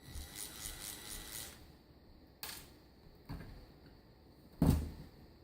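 Small electric screwdriver whirring for about a second and a half as it backs out a screw, followed by two light clicks and a louder knock near the end as screws and parts are handled.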